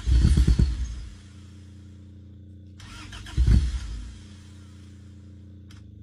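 A 1980 Honda Civic's four-cylinder engine running just after it fired up, revved twice, briefly in the first second and again about three and a half seconds in, dropping back to a steady idle after each.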